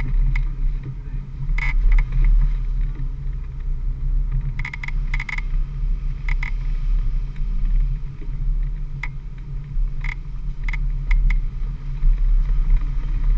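4x4 truck driving slowly over a rutted mud trail, its engine and drivetrain a steady low rumble, with a scattering of short sharp clicks and knocks as it jolts along.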